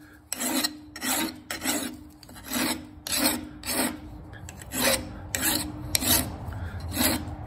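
Half-round double-cut file rasping back and forth across a forged steel blade held in a vise, about two strokes a second. This is coarse filing to take metal off quickly, the file following a line forged into the blade as its guide.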